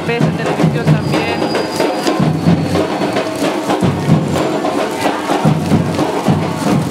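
Festival music with drums and percussion keeping a steady beat.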